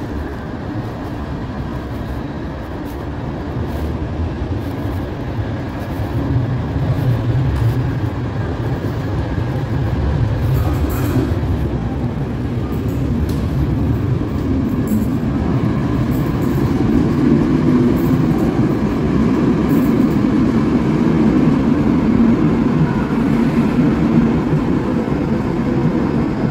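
Subway train running through an underground station, a steady low noise of the train that grows louder through the second half.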